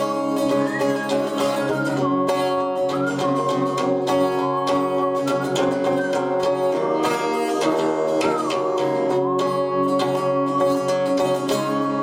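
Acoustic guitar strummed steadily in a continuous chord pattern.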